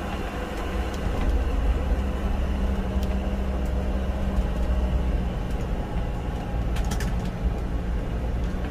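Motorhome engine running on a steep uphill climb, heard from inside the cab as a steady low drone, with a couple of faint clicks.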